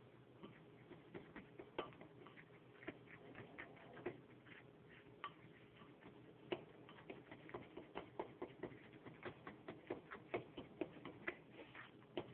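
Metal fork stirring pancake batter in a bowl, with faint, irregular clicks and taps as the fork strikes the bowl. The clicks come more often after about six seconds, at roughly two or three a second.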